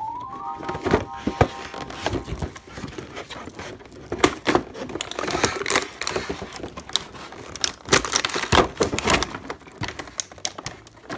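A toy box being unboxed by hand: cardboard and plastic packaging crinkling, rustling and tearing, with many sharp clicks and taps as the pieces are handled. A short rising tone, held for a moment, sounds at the very start.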